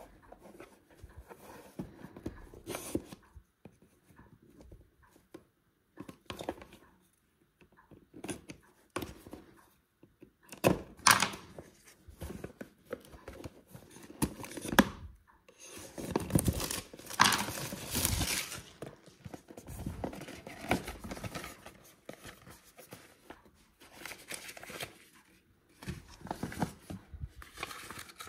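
Clear plastic shrink-wrap being cut and torn off a cardboard box, with irregular crinkling and tearing that is loudest around the middle. Cardboard and paper handling follows as the box is opened.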